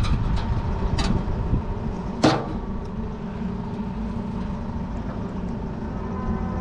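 Steady low background rumble, with two sharp clicks about one second and just over two seconds in, the second the louder.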